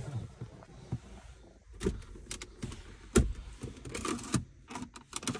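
Sharp clicks and knocks from the interior controls of a Ford Kuga being handled, the handbrake lever among them. The loudest knock comes about three seconds in, followed by a quick run of clicks near the end.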